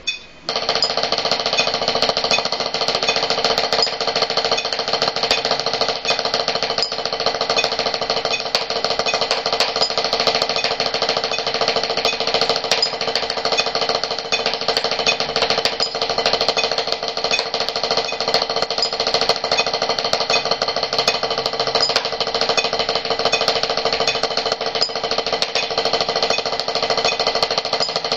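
Pair of drumsticks playing fast, even strokes on an HQ rubber drum practice pad, a steady unbroken stream of dry taps in a practice exercise at 80 bpm.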